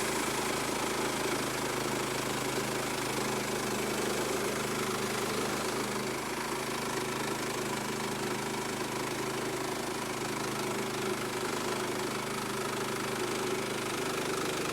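Engine of a Woodland Mills portable bandsaw sawmill running steadily at an even pitch.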